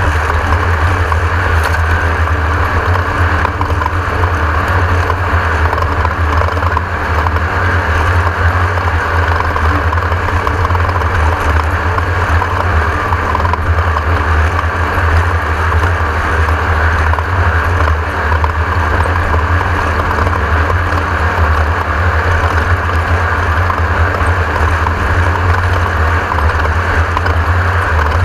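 Class 1600 off-road race car's air-cooled Volkswagen engine running hard at steady speed, a loud, unbroken drone mixed with wind and off-road rattle.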